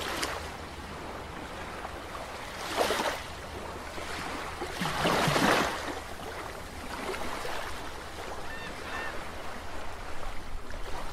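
Wind rushing, swelling in two gusts about three and five seconds in, with a few faint high chirps near the end.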